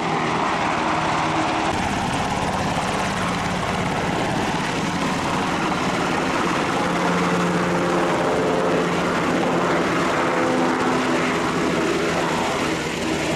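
Aircraft engine noise, steady and loud, with droning tones that grow stronger midway through.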